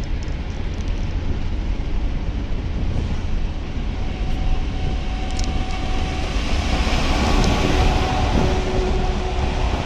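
Steady driving noise of a car on the motorway in a heavy storm: a deep rumble of tyres and wind with the hiss of rain and spray. A faint steady tone joins in about halfway through.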